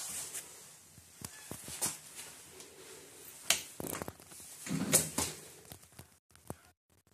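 A few scattered clicks and knocks, with two louder knocks about three and a half and five seconds in.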